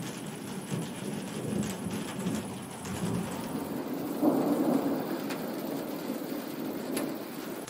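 Thunder rumbling over steady rain, with a louder roll of thunder rising about four seconds in and slowly dying away.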